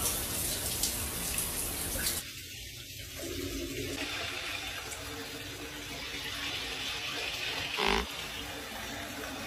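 Shower water running as a steady hiss, dropping in level about two seconds in, with a brief low bump about eight seconds in.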